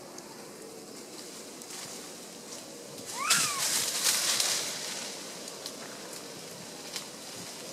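A macaque gives a short coo-like call that rises and then falls in pitch, about three seconds in. It comes with a louder rush of noise that lasts about a second and a half, over a steady faint outdoor hiss.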